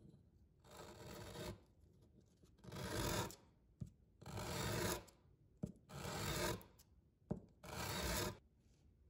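A small metal air-pump fitting is scraped back and forth across sandpaper on a flat bench to flatten its end face. There are five rasping strokes, each under a second long, with light taps between them.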